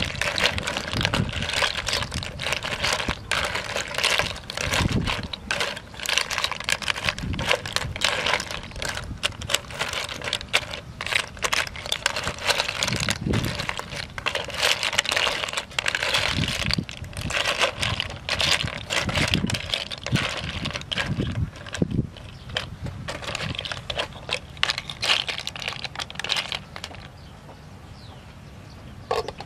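Snail shells clattering against each other and the metal pot as they are stirred, a dense run of rattling clicks that stops near the end.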